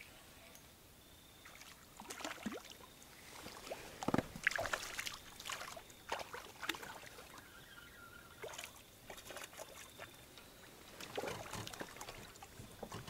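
Irregular water splashes and knocks around a small fishing boat.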